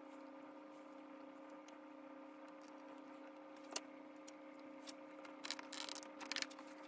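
Faint steady hum in the background, with a few small plastic clicks and taps as a round clock insert is handled and pushed into place in a prop chest, most of them in the last two seconds.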